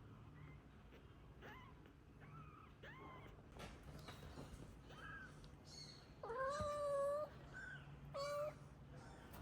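Young kittens mewing: a string of short, high-pitched mews, with a louder, longer meow about six seconds in and another shortly after.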